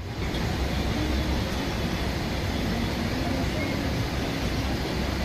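Passenger train running along the track, a steady rumble of wheels and coach, heard from inside the coach.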